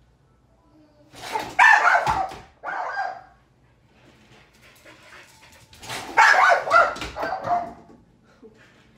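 Dog barking in two bouts, the first about a second in and the second about six seconds in.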